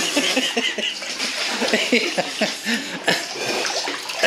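Pond water splashing and gurgling close by as a person wades chest-deep and sweeps an arm and a plastic scoop through it.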